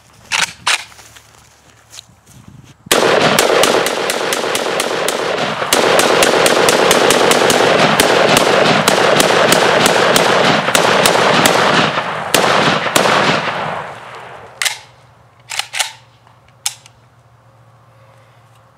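AK-pattern semi-automatic rifle fired in a long string of rapid shots lasting about ten seconds, the reports running together with echo. A few separate sharp knocks follow near the end.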